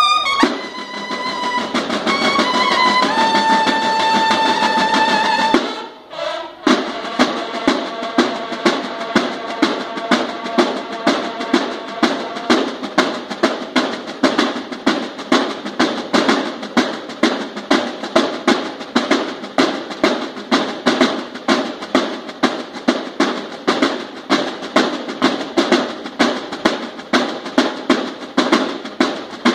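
Banda de guerra bugles play a short phrase ending on a long held note, then after a brief pause the snare and bass drums take up a steady marching beat with about two accented strokes a second.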